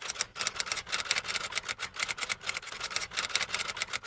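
Typing sound effect: a rapid, unbroken run of sharp key clicks, several a second.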